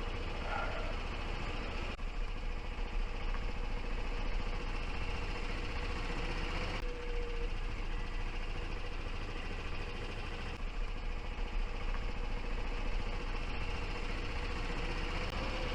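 A vehicle driving steadily, heard from on board: a steady running hum and road noise with a faint constant whine.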